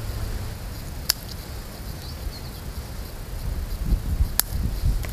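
Wood fire crackling in a small titanium gasifier wood stove, with two sharp pops, one about a second in and one near the end, over a steady low rumble.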